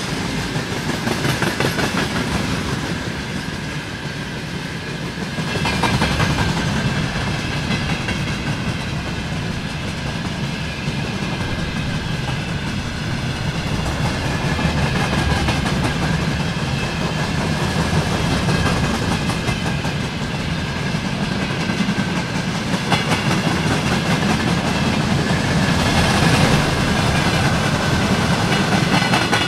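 Freight train wagons rolling past on the rails: a steady heavy rumble with the wheels clacking over rail joints, and a thin steady high whine above it.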